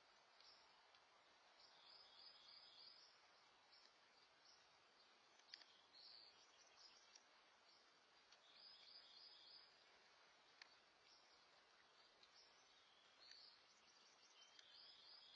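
Near silence: a faint steady hiss with distant high chirping calls repeating every second or two, and two faint clicks.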